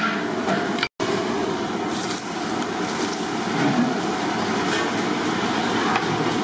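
Steady rushing noise of a large gas stove burner, with light clatter of a ladle and cubed ridge gourd being tipped into a pot. The sound cuts out for a moment about a second in.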